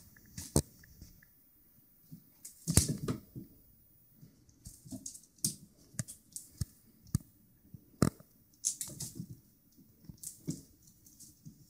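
Irregular taps, knocks and scuffs of a kitten pouncing and scrabbling on a hardwood floor while playing with a feather wand toy, loudest about three seconds in and again about eight seconds in.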